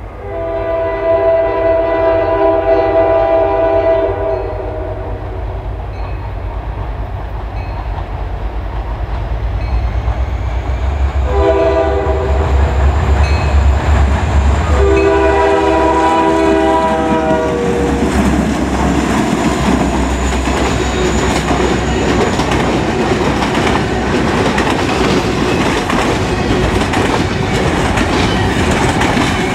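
Locomotive air horn on CN SD40-2W 5343, leading a freight train with an SD60, sounds one long blast, then after a pause two more blasts close together as the train approaches. The low rumble of the EMD diesel locomotives builds, and about two-thirds of the way through the train passes close with steady wheel and rail clatter.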